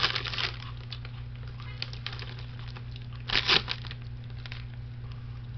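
Crinkly snack-food bag rustling in two short bursts, one at the start and one about three and a half seconds in.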